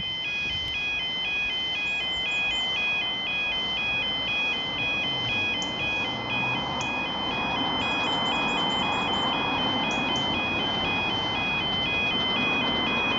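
Level crossing warning alarm sounding a steady two-tone warble, alternating evenly between two high pitches, as a train approaches. Under it, steam hisses from the small steam locomotive as it moves off, growing louder from about halfway.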